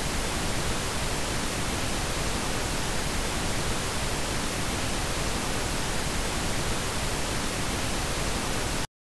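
Steady, even static-like hiss with no rhythm or tone, cutting off abruptly into dead silence near the end.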